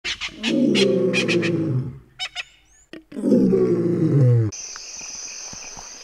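Two loud, low, drawn-out animal calls, each falling in pitch and lasting about a second and a half, with a run of sharp clicks over the first. The second ends abruptly about four and a half seconds in, giving way to a quieter outdoor background with a steady high buzz.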